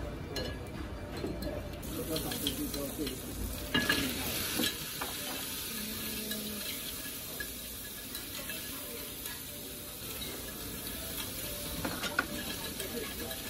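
Clams and onions sizzling in a steaming hot pot as broth goes in, with metal tongs clicking against the pot a few times, most sharply about four seconds in and again near the end.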